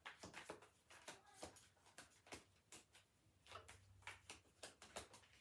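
A tarot deck being shuffled by hand: faint, irregular flicks and clicks of the cards, about three a second.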